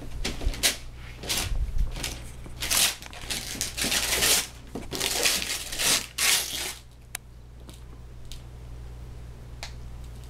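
Wrapping paper tearing and crinkling as a present is unwrapped by hand: repeated loud rips and rustles for about the first seven seconds, then quieter with a few small clicks.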